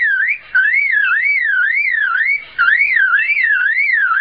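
Superb lyrebird mimicking a car alarm: a loud whistled warble that sweeps up and down about two to three times a second, breaking off briefly twice.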